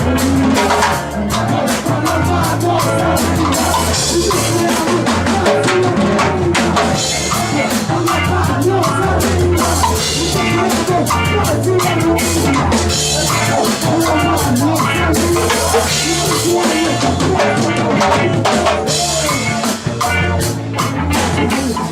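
Live ska-punk band playing loudly, the drum kit hitting hard and fast with snare and bass drum throughout.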